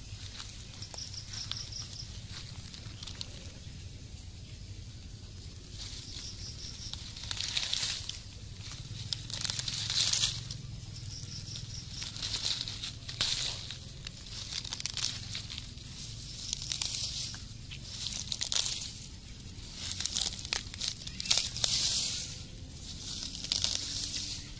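Leaves and grass rustling and tearing as a hand pushes through and pulls at low plants, in short bursts every second or two.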